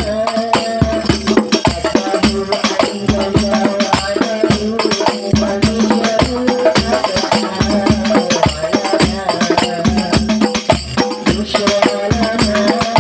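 Instrumental interlude of sholawat accompaniment: a steady beat of low drum hits under jingling percussion and a melody line, with no singing.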